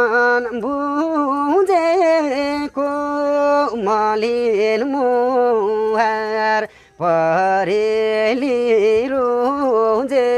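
A man singing a Nepali folk song unaccompanied, in long held, wavering notes, with short breaths between phrases and a brief pause about seven seconds in.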